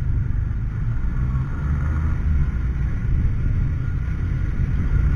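Steady low rumble of a motorcycle ride heard through a helmet-mounted action camera: the bike running along with wind and road noise on the microphone.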